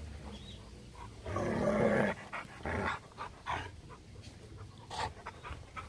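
A dog panting in short noisy bursts, the longest lasting nearly a second, starting about a second and a half in.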